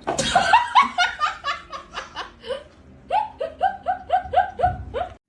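A person laughing hard in two runs of rapid, high-pitched "ha-ha" bursts, about four to five a second. The second run starts about three seconds in, and the sound cuts off abruptly just before the end.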